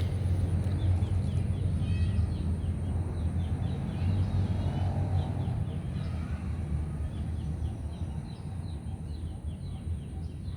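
A bird calling in long runs of short, high chirps over a steady low outdoor rumble.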